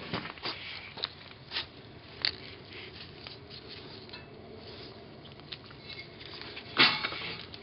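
Handling noises as gloved hands work epoxy putty onto a cracked iron chair: light rustling and a few sharp clicks, with one louder knock near the end.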